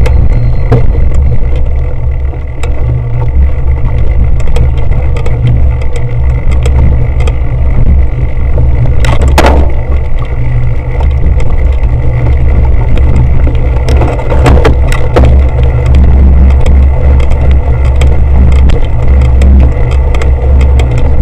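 Heavy wind rumble on an action camera's microphone as a cyclocross bike is ridden over rough grass. Scattered knocks and rattles from the bike jolting over the ground are clearest about nine seconds in and again around fourteen to fifteen seconds in.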